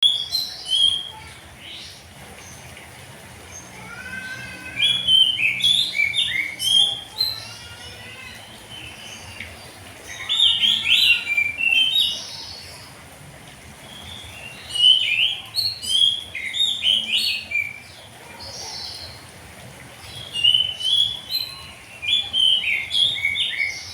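Oriental magpie-robin (kacer) singing its full song: bouts of varied, loud whistled and chirped phrases of 2–3 s, five of them separated by short pauses.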